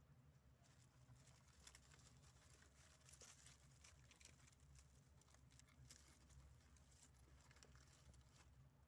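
Faint, irregular crackling rustle of dry straw as baby rabbits shift about in their nest, starting about half a second in and dying away near the end, over a low steady hum.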